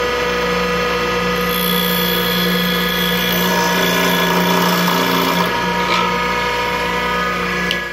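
Bench grinder motor running with a steady hum while a piece of steel tube is ground on its fine-grit wheel, a grinding hiss rising over the motor from about a second and a half in to about five and a half seconds in.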